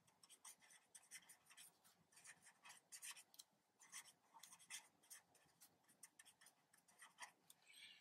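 Faint scratching of a pen writing on paper: a run of short, quick strokes forming handwritten words.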